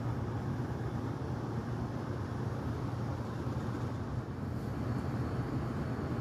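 Steady low rumble of surrounding city traffic: a constant drone with no distinct events.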